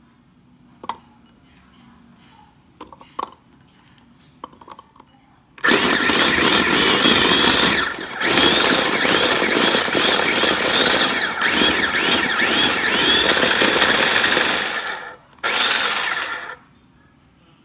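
Electric mini food chopper mincing ginger and garlic. After a few light clicks, the motor starts about six seconds in and runs loudly for roughly nine seconds, with a momentary dip shortly after it starts. It then stops and gives one more short pulse of about a second.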